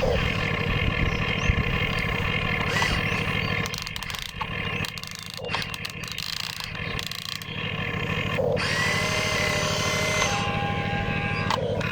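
Electric motors of radio-controlled model excavators and dump trucks running with a steady mechanical whirr. The sound thins out for a few seconds in the middle, and a couple of held whistling tones come in later.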